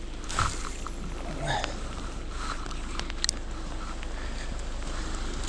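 Steady rain hiss with a few scattered light ticks and knocks.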